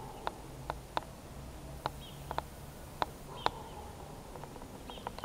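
Wind rumbling low and steady, with irregular sharp clicks throughout that come faster near the end, and a few faint short squeaks.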